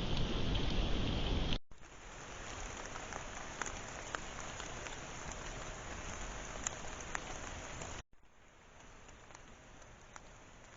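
Rain falling steadily, a continuous hiss with scattered sharp drip ticks. It cuts off abruptly twice, coming back quieter each time.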